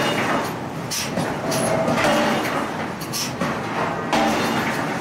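Heavy power forging hammer striking a red-hot steel flange ring on the anvil, blows coming about once a second over a steady machine noise.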